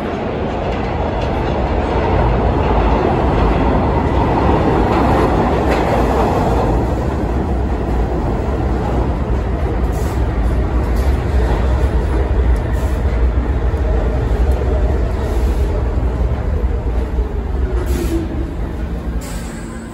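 New York City Subway train pulling into the station and slowing to a stop, a loud rumble and clatter of wheels on rail that builds as it arrives. Near the end a falling whine as it slows, with a few sharp clicks.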